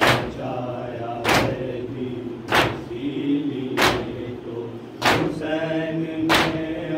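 Group of men chanting an Urdu noha together while beating their chests in unison (matam). A sharp, loud slap lands about every second and a quarter, six in all, with the sung chant carrying on between the slaps.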